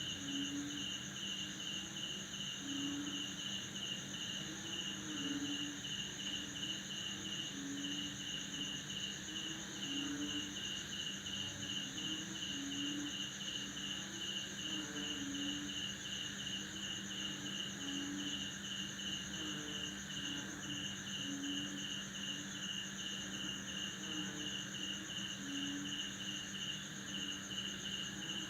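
A night chorus of crickets: a rapid pulsed chirp, about three to four a second, over a continuous high trill. Frogs croak in short low calls every second or two.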